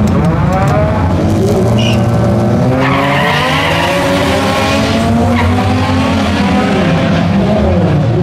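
Mazda 1300 drag car and the car beside it revving on the start line, then launching about three seconds in and accelerating away, engine pitch climbing and dropping back at each gear change.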